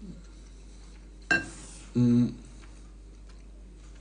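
A metal spoon clinks once against a soup bowl about a second in, with a short ringing decay. About half a second later comes a brief low hum.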